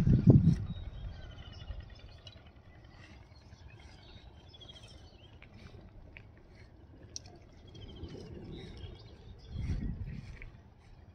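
Small birds chirping in short rapid trills in the background. A loud low rumble comes at the very start and again about ten seconds in.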